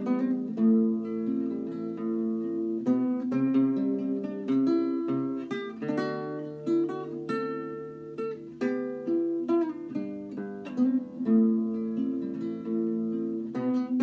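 Solo classical guitar played fingerstyle: an improvised folk-style tune of plucked notes and chords that are left to ring.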